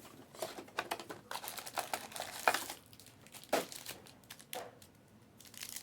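Trading card packs and cards being handled: a run of short crinkling rustles and clicks.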